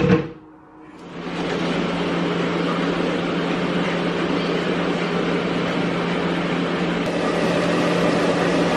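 Kitchen extractor hood fan coming on about a second in and running with a steady whoosh and low hum. About seven seconds in, a brighter hiss joins it as diced onion starts to sizzle in hot oil in the wok.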